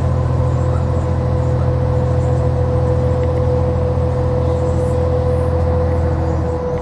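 New Flyer XDE60 Xcelsior articulated hybrid bus with a Cummins ISL9 diesel, running steadily: a deep engine drone with a steady whine above it. The deep drone drops away near the end.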